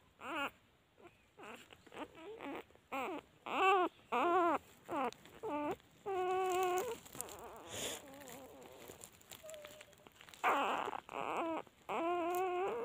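Newborn puppies whining and crying in a string of short, high cries that bend up and down, with a few longer, steady cries about six seconds in and near the end.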